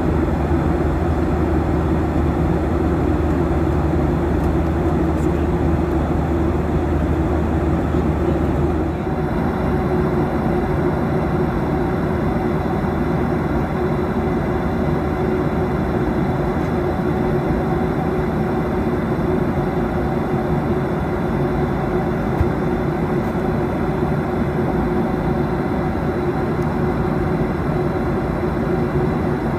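Steady jet engine and cabin noise inside a Boeing 737-800 airliner, a constant hum with a few steady tones through it. A low rumble underneath drops away about nine seconds in.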